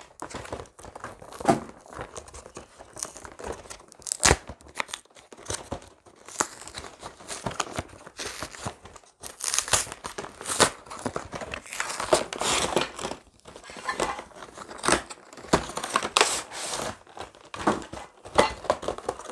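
Cardboard Pokémon TCG collection box being torn open along its top by hand, with the crinkling and rustling of its packaging as the contents are pulled out. The tearing and rustling come in short, irregular bursts with small knocks among them.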